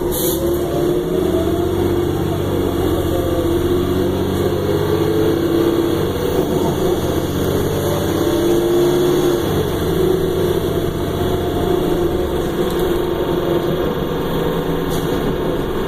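Cabin sound of a 2009 Orion VII transit bus under way: the engine and drivetrain run under load, their pitch rising and falling gently as the bus speeds up and eases off, over a steady rumble of road noise.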